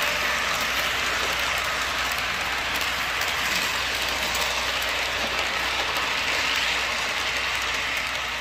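Model train freight cars rolling past close by on the layout track: a steady rattle of wheels on the rails, a little quieter near the end as the last car passes.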